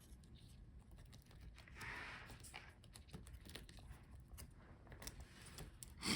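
Faint small clicks and a brief rustle of hands working on laptop internals, freeing connectors and parts, with one sharper click near the end.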